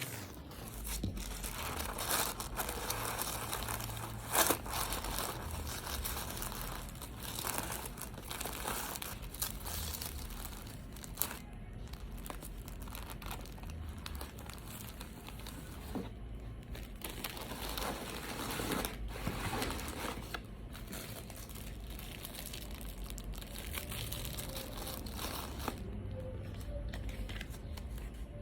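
Packaging paper crinkling and rustling as a gift box is packed, in a continuous run of handling noise with occasional sharper crackles, the loudest about four seconds in.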